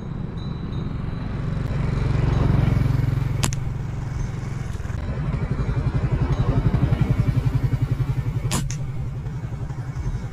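Motorbike engine running at low speed, its low drone swelling about two seconds in and then pulsing evenly through the second half. Two sharp clicks, one about three and a half seconds in and one near the end.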